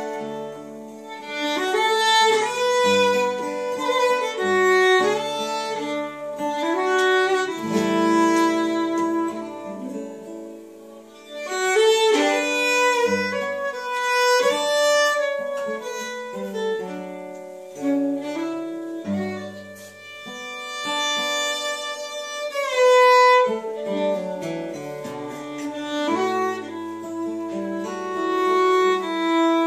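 Five-string fiddle playing a bowed melody over guitar accompaniment.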